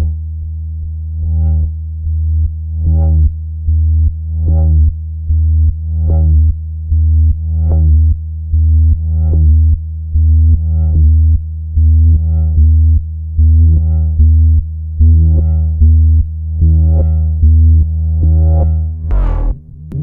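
Make Noise Strega synthesizer playing a self-running rhythmic sequence: a steady deep bass drone under short pulsing notes that repeat about every three-quarters of a second. Near the end the pattern breaks into sweeping tones that rise and fall.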